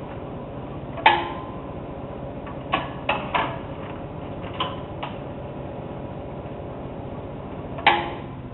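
Rank Xerox 813 desktop copier running with a steady hum from its motor and cooling fan. Two sharp mechanical clunks, about a second in and near the end, carry a short ring, and a few lighter clicks fall between them.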